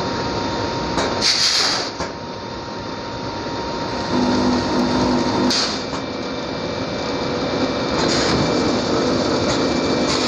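Vertical form-fill-seal pouch packing machine running steadily, with a short loud hiss about a second in and weaker hisses every few seconds after as it cycles.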